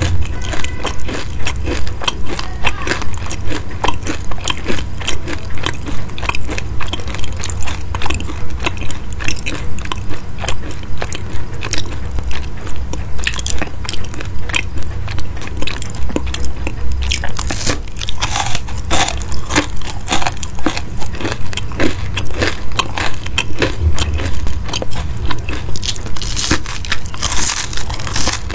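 A person chewing crunchy baked pastries close to the microphone: a steady crunching, about two chews a second.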